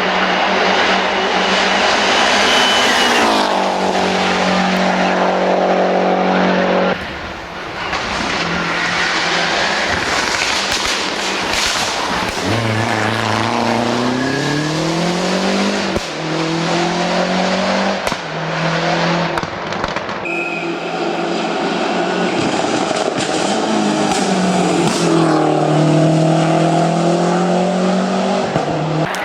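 Lancia Delta Integrale's turbocharged four-cylinder engine, heard from inside the car, driven hard. The revs climb and fall repeatedly through gear changes and braking, with a short lift-off about seven seconds in.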